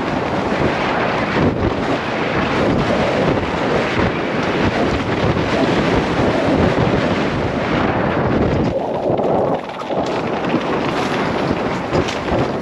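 Wind rushing over a helmet-mounted microphone on a fast enduro mountain-bike descent, mixed with the rumble and rattle of the bike running over a dirt trail. It eases for about a second two-thirds of the way through.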